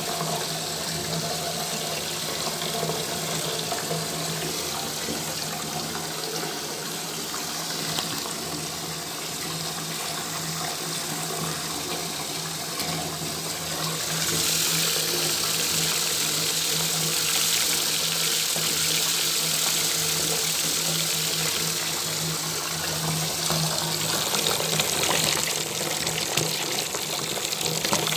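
Bathtub tap left running, water pouring into the tub in a steady rushing splash. About halfway through, the rush turns brighter and a little louder.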